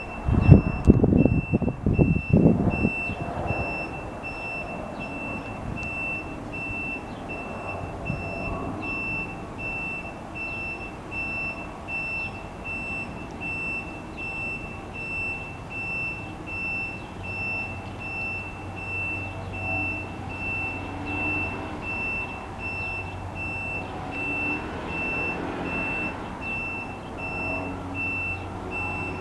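A high-pitched electronic beep repeating at an even rate throughout, over low outdoor background noise. A few loud, low gusts of noise come in the first three seconds.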